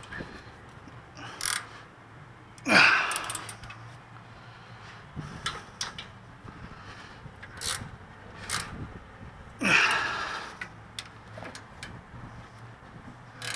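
Scattered clicks and light knocks of gloved hands handling parts and wiring under an SUV's rear suspension, with two louder, brief scraping sounds about three and ten seconds in. A faint steady hum runs underneath.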